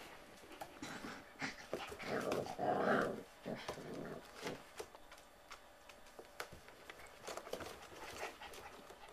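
Puppies playing and tussling on a wooden floor: small growls and whimpers among many light ticks and taps, loudest between about two and three seconds in.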